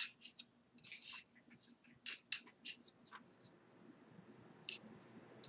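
Large wooden knitting needles (US size 19) clicking against each other and catching on super chunky yarn as stitches are worked. The clicks come in a quick, irregular run, then thin to a couple of single clicks near the end.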